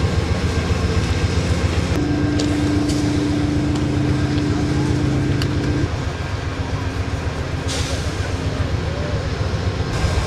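Amtrak Cascades diesel locomotive idling while stopped on the track, a steady low hum. A higher steady tone joins about two seconds in and drops out about six seconds in.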